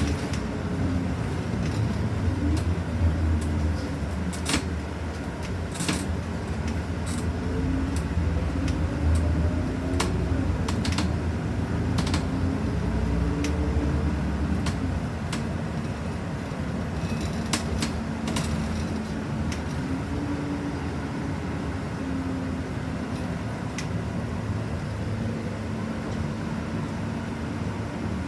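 A new city bus running, its engine pitch rising and falling several times in the first half, then holding steady, with scattered sharp clicks and rattles over the drive noise.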